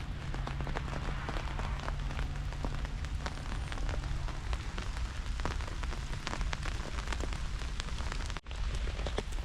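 Rain falling on an open umbrella overhead, a dense run of small drop ticks. A low steady hum runs under it for about the first four and a half seconds.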